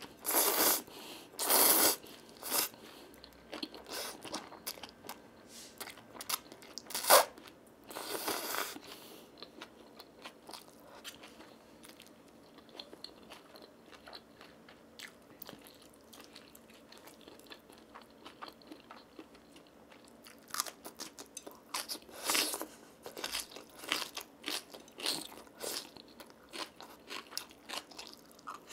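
Close-miked eating: Buldak stir-fried noodles slurped in loud bursts in the first couple of seconds, then chewing with sharp crunches and bites. Quieter in the middle, busier with crunching again over the last several seconds.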